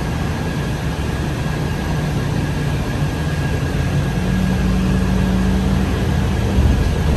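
Inside a moving bus: the engine and road noise make a steady low drone with a faint high whine above it. A low engine tone swells and holds for a couple of seconds about four seconds in.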